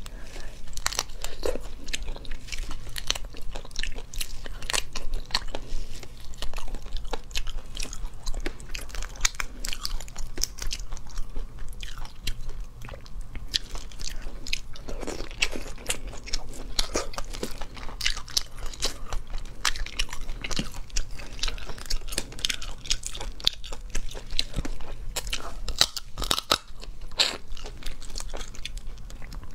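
Close-miked crunching and chewing as cooked prawns are eaten: shells crackle as they are peeled by hand and bitten. The clicks and crackles run on irregularly, one after another.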